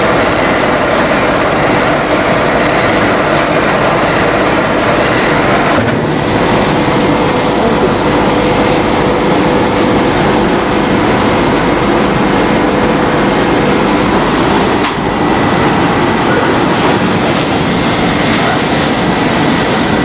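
Rice husk fired steam boiler plant machinery running: a loud, steady mechanical din with a faint steady hum through it.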